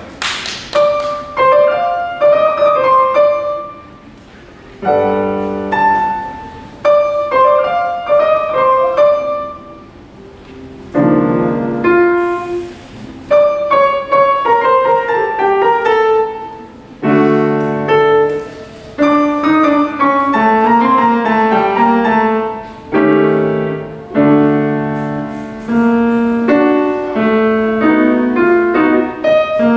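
Bösendorfer grand piano played solo: a classical piece in short phrases, with brief pauses about four and ten seconds in, then busier playing with lower bass notes through the second half.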